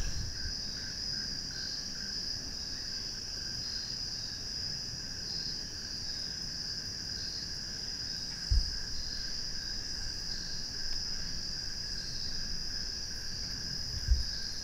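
Steady insect chorus: a high continuous trill with a lower, fainter trill beneath it, pulsing slightly about once a second. Two dull low bumps break in, about eight and a half seconds in and near the end.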